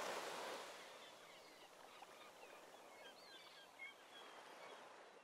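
Near silence: a faint hiss slowly fading, with a scatter of faint short high chirps about two to four seconds in.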